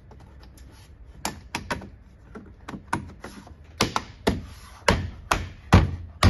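Plastic trim panel of a Scania truck door card being pressed and tapped by hand to click its clips into place. It gives a quick series of sharp clicks and knocks, which get louder and heavier from about halfway through.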